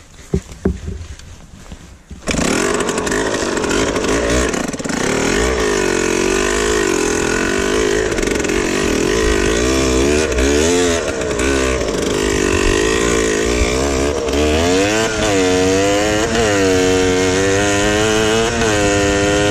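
Yamaha DT 80's small two-stroke single-cylinder engine. A few knocks come first, then the engine comes in suddenly about two seconds in and runs under load while riding. Its pitch rises and falls with the throttle, in repeated rev-ups and drops near the end.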